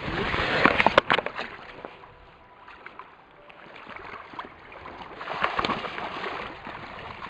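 Water sloshing and splashing as a person wades waist-deep into a cold river and plunges in, with a few sharp knocks about a second in and a second swell of splashing from about four seconds in.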